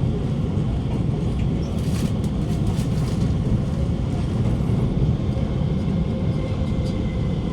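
Cabin noise inside an Alstom Movia R151 metro car running along the track: a steady low rumble of wheels and running gear, with a faint steady hum. A few light clicks come from about two to three seconds in.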